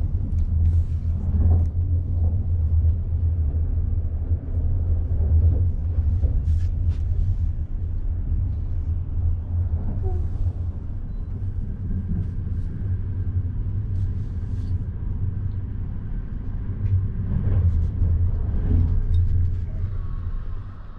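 Passenger train carriage running: a steady low rumble with scattered light clicks and knocks.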